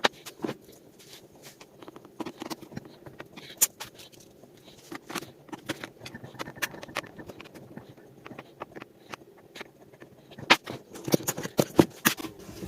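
Irregular light clicks, taps and scrapes of hands working on the plastic housing of a shop vacuum during reassembly, more frequent near the end.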